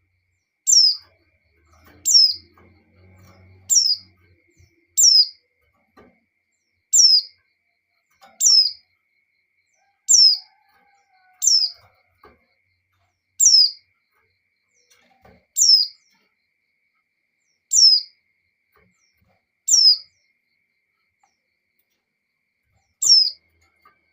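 Female white-eye (pleci) call: one short, high note sliding downward, repeated about every one and a half to two seconds, with a longer pause near the end. It is a female's call in breeding condition, used as a lure to set male white-eyes singing.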